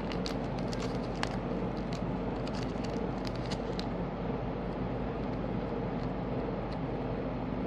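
Steady background hiss, with faint scattered clicks and crinkles during the first half or so as a resealable plastic bag is handled and a small foam squishy is taken out.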